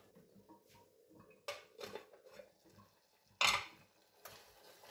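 Metal saucepan lid being handled: a few light clicks and knocks, then a single sharp clatter about three and a half seconds in as the lid is set down on the hob's other hot plate.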